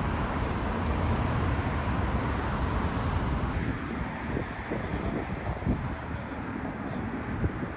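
Jet airliner passing close on its landing approach: a broad, even rush of engine and air noise that thins out and fades from about three and a half seconds in.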